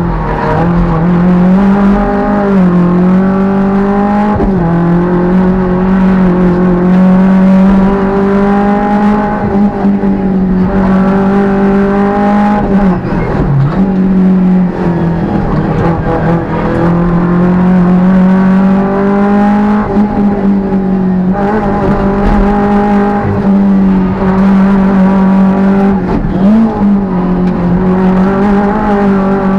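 Peugeot 205 rally car's four-cylinder engine at high revs, heard from inside the cabin. It holds a steady high note and several times drops briefly and climbs back, as with gear changes.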